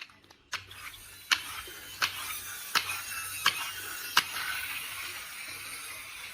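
A series of six sharp, evenly spaced clicks, about one every three-quarters of a second, over a steady hiss.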